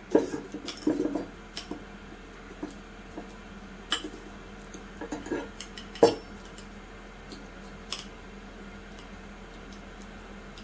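Metal fork clinking and scraping against a dish while mashing avocado: a quick run of clicks in the first second or so, then scattered single clinks every second or two, the sharpest about six seconds in.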